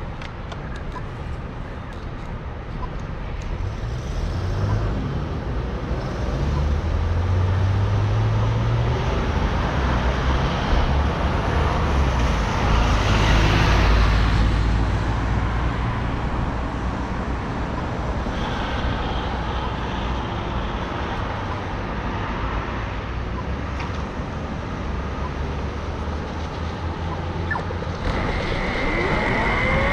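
Sur Ron Light Bee electric dirt bike on the move: wind and road noise swell to a peak about halfway through and ease off, and near the end a rising electric motor whine sets in as it speeds up.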